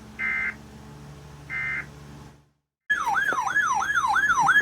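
Two short digital EAS data bursts, the end-of-message tones that close an alert, about a second apart. After a moment of dead silence a loud warbling siren tone starts, sweeping up and down about two and a half times a second.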